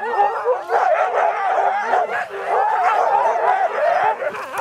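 A team of harnessed huskies yipping, barking and whining all at once in a dense, overlapping chorus that never lets up. It is the frenzy of sled dogs worked up on the line.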